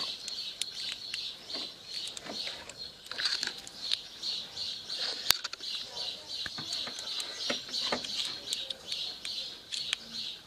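Light metallic clicks and rattles of a clutch cable's end fittings and bracket being moved by hand, with one sharper click about five seconds in, over a steady high-pitched pulsing sound in the background.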